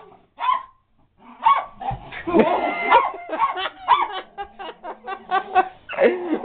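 A small dog barking and yipping as it jumps up at a person, mixed with a person laughing. The sounds come in a string of short bursts that grows quicker in the second half.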